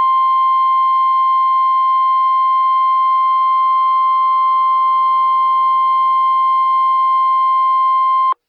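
NOAA Weather Radio 1050 Hz warning alarm tone: one long, steady, unwavering tone that cuts off abruptly near the end. It is the attention signal that comes before a severe thunderstorm warning is read.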